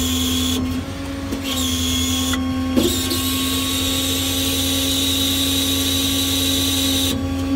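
Service-truck hydraulic outrigger system running: a steady drone from the PTO-driven hydraulic pump, with a high hissing whine of oil through the control valve that comes on three times as the outrigger is powered out, the last stretch lasting about four seconds. A single sharp click sounds just before three seconds in.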